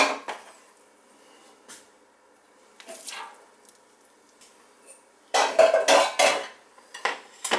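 Canned hominy being emptied into a large stainless steel stockpot: metal-on-metal clattering and knocking in short bursts, the loudest and longest cluster about three-quarters of the way through.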